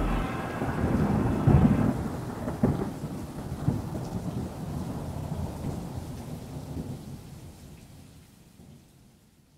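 Thunderstorm: rain falling with rumbling thunder and a few sharp cracks in the first four seconds, then fading away steadily.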